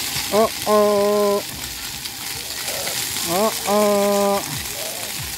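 Splash-pad fountain jets spraying water onto wet concrete, a steady hiss. Twice, about three seconds apart, a short rising chirp followed by a held steady tone of under a second stands out above the hiss.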